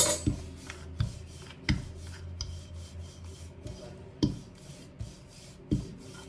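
Wooden rolling pin rolling out bhatura dough on a granite counter: a rubbing, rasping roll with a sharp knock every second or so as the pin comes down or changes direction.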